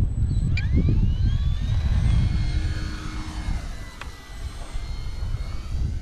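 Electric motor and propeller of a Turbo Timber RC plane, a brushless motor on a 4S LiPo, throttling up for takeoff: the whine rises steeply in pitch, then holds and fades after about three seconds as the plane climbs away. Strong wind buffets the microphone throughout.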